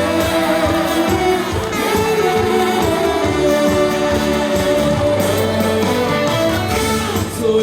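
Instrumental introduction of a Korean trot song: a held melody line over a bass beat, before the vocal comes in.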